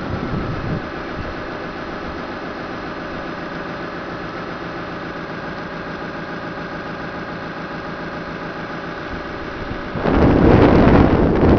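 Steady engine drone with several held tones running evenly; about ten seconds in, wind buffets the microphone loudly.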